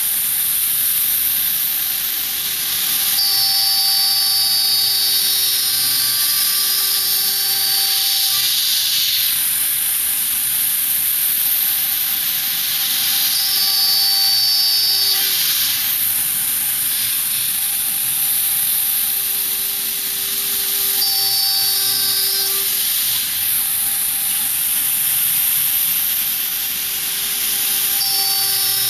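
CNC router running: a steady high hiss, with thin high whining tones that come and go in stretches of a few seconds as the machine works.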